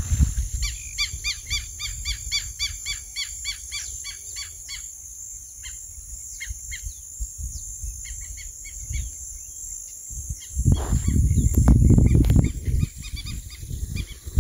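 Common gallinule calling: a fast run of short notes, about four a second, for some four seconds, then a few scattered calls. About ten seconds in, a low rumble on the microphone lasts two to three seconds and is the loudest thing.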